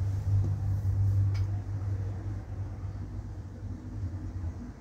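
A low steady hum with no speech, and a faint click about a second and a half in.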